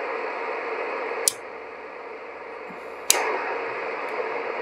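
Steady static hiss from the CB radio's receiver. It is cut by two sharp clicks as the linear amplifier's preamp is switched: after the first click the hiss drops noticeably, and after the second, about two seconds later, it comes back up to full level. The louder hiss is the preamp adding receive gain.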